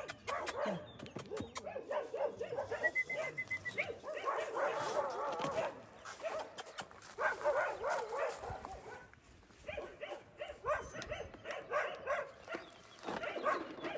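Small dog whimpering and yelping in quick runs of short, high cries, several a second, with brief pauses between the runs.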